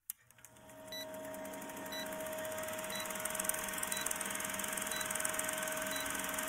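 Film countdown-leader sound effect: the fast, steady clatter of a film projector with a short beep about once a second, fading in over the first second.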